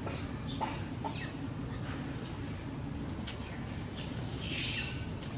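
Baby macaque giving a series of short, high-pitched squealing calls, each falling in pitch, with the loudest and longest near the end.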